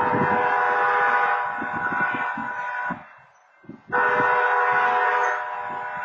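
Railroad-crossing wayside horn sounding two long blasts of about three seconds each, a second apart. It is set off by a phantom activation of the crossing, with no train present.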